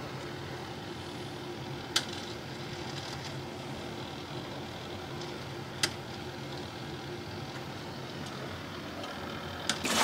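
Whirlpool Duet front-load washer running with its replacement control board: a steady low mechanical hum, with two sharp clicks about two and six seconds in.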